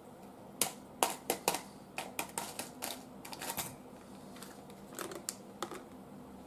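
Instant egg soup sachet handled and tipped out into a mug: an irregular run of small dry clicks and crinkles, several close together in the first half, stopping about a second before the end.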